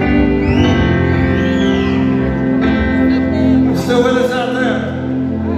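Live ballad on a stage keyboard: held keyboard chords with a male voice singing over them, heard through a concert PA in a large hall.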